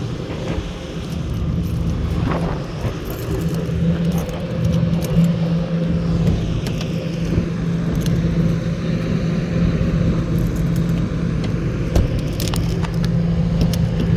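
Car engine idling with a steady low hum, with a few short clicks and rattles near the end.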